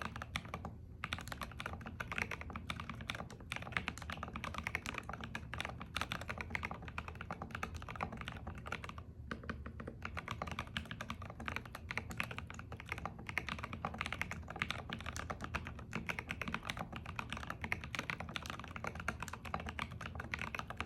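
Fast, continuous typing on a custom 60% ergonomic mechanical keyboard with linear switches, SA-profile keycaps and an aluminum plate. The keystrokes run densely, with brief pauses about a second in and about nine seconds in.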